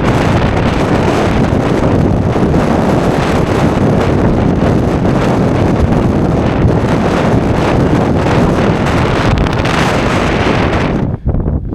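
Strong mountain wind buffeting the microphone: a loud, steady rush of wind noise that drops off briefly near the end.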